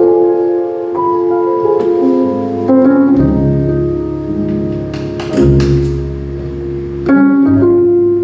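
Jazz trio of piano, guitar and bass playing: held chords struck afresh about every two to three seconds, with deep bass notes coming in about three seconds in.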